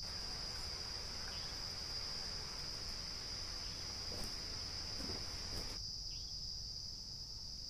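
Quiet background with a steady high-pitched tone or trill, plus a faint hiss that drops away about six seconds in.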